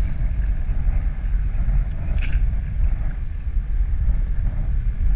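Wind buffeting the microphone on an open boat at sea, a steady low rumble, with a short hiss about two seconds in.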